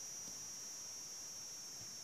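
Quiet room with a steady high-pitched hiss from the recording, and faint soft rubbing as a hand strokes a cat's fur, a little more near the end.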